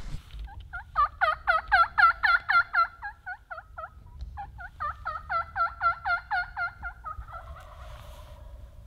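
Turkey yelping: two long runs of evenly spaced yelps, about four or five a second, each run of roughly a dozen notes, the second trailing off into a lower, fading sound.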